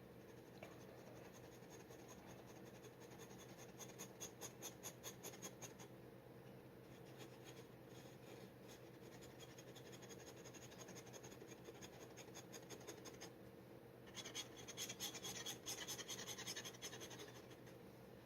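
Steel G nib dip pen scratching on paper in quick short strokes, with a busy spell about four seconds in and another near the end, over a faint steady hum.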